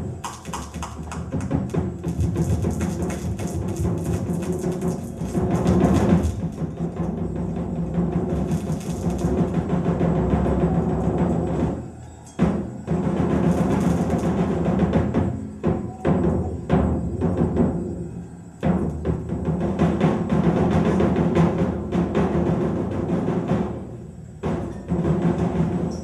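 Live electronic improvisation: dense laptop-made sound mixed with deep, drum-like percussion rumbling and striking, dipping briefly about three times.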